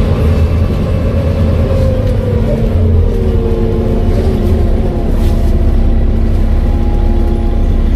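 Volvo B7TL bus's engine and Voith automatic gearbox running under way, a steady low rumble with a whine that falls in pitch around the middle as the engine note eases.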